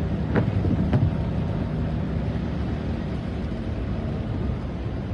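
Car driving on a rain-soaked road, heard from inside the cabin: a steady low rumble of engine and tyres on wet tarmac. Two short knocks come about half a second apart near the start.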